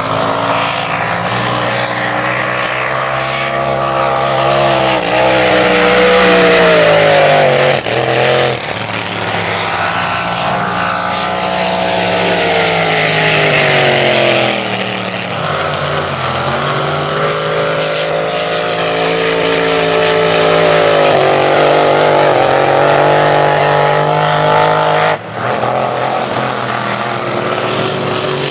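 Supercharged unlimited displacement-class race boat engines running hard as the boats pass. The engine note swells and falls in pitch several times and breaks off abruptly twice.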